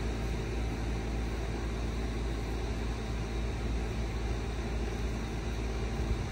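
Steady low rumble with an even hiss, without distinct events.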